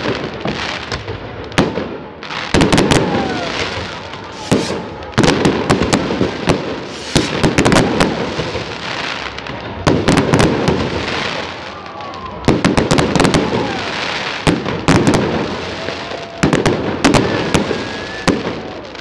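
Aerial fireworks bursting overhead: many sharp bangs, some in quick clusters, with dense crackling from the stars between them.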